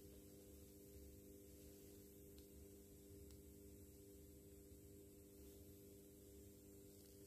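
Near silence with a faint steady electrical hum, and two very faint ticks in the middle.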